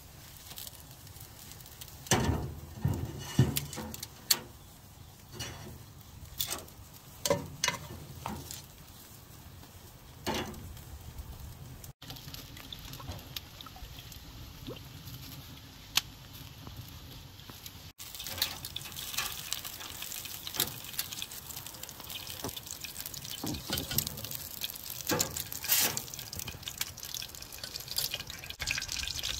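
Metal tongs clicking and knocking against a charcoal grill grate as charred peppers are turned. About twelve seconds in, olive oil is poured in a steady stream into a frying pan. From about eighteen seconds, the oil heats over the coals with a dense crackle that grows busier toward the end.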